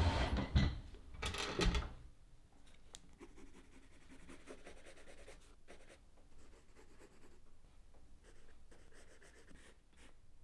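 Pencil sketching on paper: soft, scratchy strokes that come and go unevenly. It follows louder rustling and bumps in the first two seconds.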